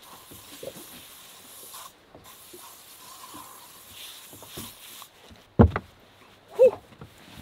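Soft hiss with light rustling and handling noises in a small fishing boat, then one sharp knock about five and a half seconds in and a short low sound a second later.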